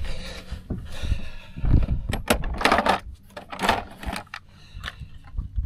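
Clinks, knocks and rustling scrapes from a caught bass and fishing gear being handled on the deck of a bass boat.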